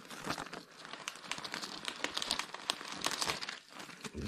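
Baking paper crinkling and rustling under a household iron as it is pressed and pushed across the paper to melt iron-on seam sealing tape onto a tarp, in short irregular crackles with a brief lull near the end.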